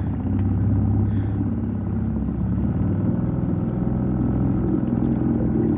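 Outboard motor of a small boat running steadily under way, a low even drone.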